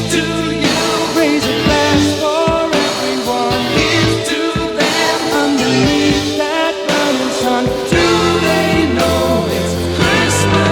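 Pop song played from a vinyl record: a full band with singing over a steady bass line.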